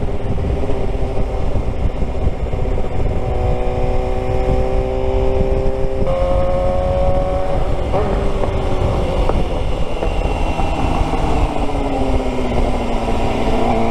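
Suzuki GSX-R 600's inline-four engine running on the road under heavy wind noise. Its note steps up about six seconds in, sinks slowly as the bike slows, and steps up again near the end.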